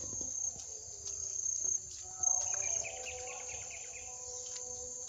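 Steady high-pitched drone of insects in tropical forest undergrowth, with a brief run of bird chirps about two seconds in.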